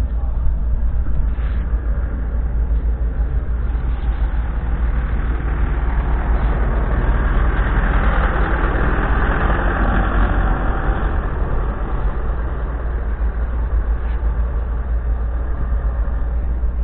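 Fordson Super Major's 3.6-litre four-cylinder diesel engine idling with a steady low rumble, growing somewhat louder for a few seconds around the middle.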